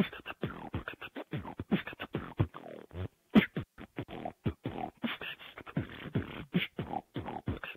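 Solo beatboxing: a quick run of vocal drum hits with deep, falling kick sounds, a short break a little past three seconds in, then a hard hit. It comes through online voice chat, so the top end is cut off and it sounds thin.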